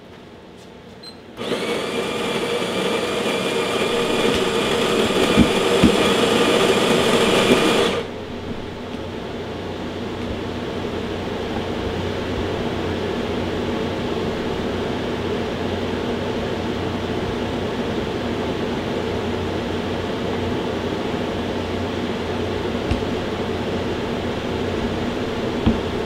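Miele CM6310/6350 bean-to-cup espresso machine starting a latte macchiato: its built-in grinder milling beans for about six seconds from a second and a half in, growing slightly louder, then a steadier, quieter machine hum as it preheats.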